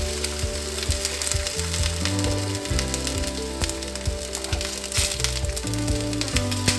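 Chicken pieces sizzling and crackling in a steel pan of hot oil, just splashed with about a cup of water, with a spatula stirring near the end. Background music plays underneath.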